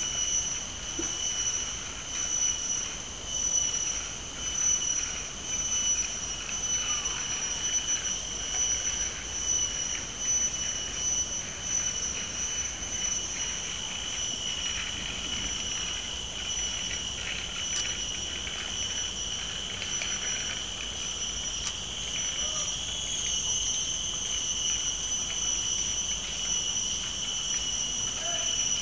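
Cicadas calling in a continuous shrill, high-pitched drone that holds one pitch throughout. The chorus swells and dips in loudness through the first half and then settles to a steadier level.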